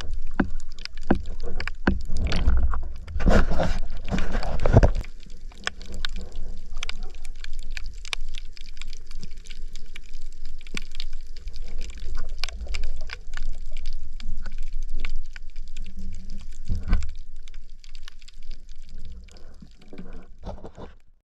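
Underwater and near-surface water sounds in shallow sea: a low rumble of moving water, with many scattered clicks and crackles. Louder splashing and sloshing comes about two to five seconds in and again briefly near the end, and the sound cuts off suddenly just before the end.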